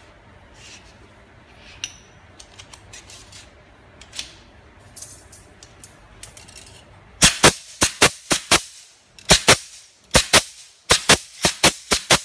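Pneumatic C-ring gun firing green C-rings closed around a steel rod: sharp snapping shots in quick runs of several a second with short pauses, starting about seven seconds in. Before that only faint clicks are heard.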